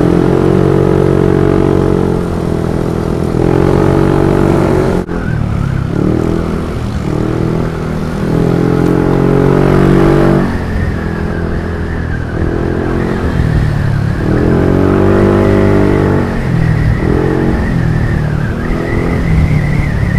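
Yamaha NMAX 155 scooter's single-cylinder engine running while riding, its note rising and falling again and again with the throttle.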